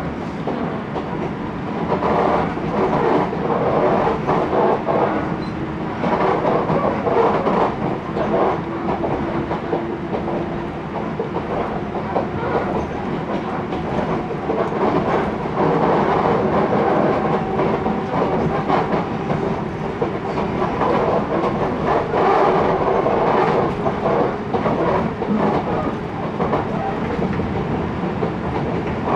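Running noise of an ex-Kintetsu 16000 series electric train, heard from inside the carriage: a steady rumble of wheels on the rails with clicks over the rail joints, swelling and easing as it goes.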